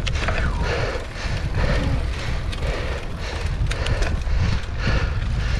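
Wind rumbling on a handlebar-mounted action camera's microphone as a mountain bike rolls along a paved road, with a softer swishing that repeats about every 0.7 seconds.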